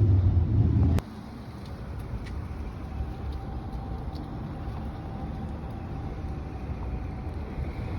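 Steady low rumbling noise of a car being driven. A louder low hum cuts off abruptly about a second in.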